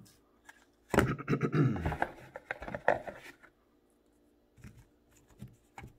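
Handling noise from alarm-kit parts and packaging: about two seconds of rustling and scraping, then, after a short pause, a few light clicks and knocks near the end.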